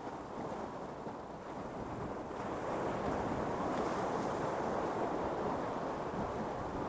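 Ocean surf on a beach: a steady rushing wash of waves that swells and grows louder a little over two seconds in, as a wave breaks and runs up.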